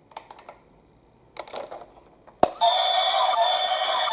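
Plastic toy trains clicking and knocking as they are handled, then a sharp click about two and a half seconds in as a battery-operated green toy locomotive is switched on, and it starts its loud, steady electronic sound of several held tones.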